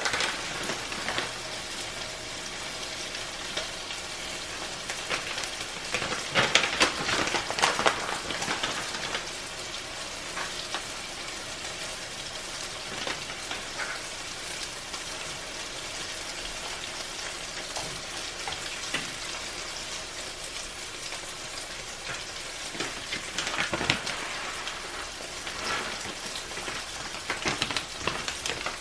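Cream-and-butter Alfredo sauce sizzling steadily in a pan on the stove, with a spoon stirring and scraping through it in bouts, loudest about six to eight seconds in and again near the end.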